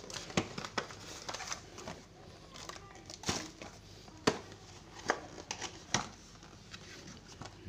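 Cardboard and paperboard rustling and scraping, with scattered light knocks and clicks, as a paperboard pack of LED bulbs is slid out of its cardboard shipping carton and its end flap is pulled open. The sharpest knock comes about four seconds in.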